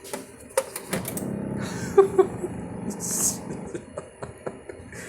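Sharp plastic clicks from handling a single-serve pod coffee machine, then a low steady hum from the machine for a couple of seconds, with a brief hiss near its end.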